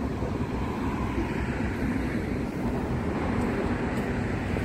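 Wind buffeting the microphone in a steady low rumble, with road traffic running beneath it.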